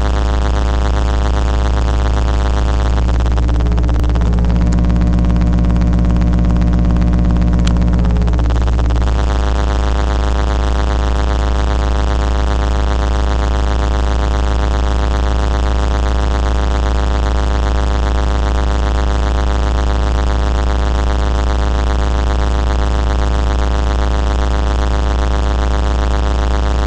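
A loud, steady electrical buzz with many evenly spaced overtones, unchanging throughout; about three seconds in a lower drone joins it for some six seconds, then drops away.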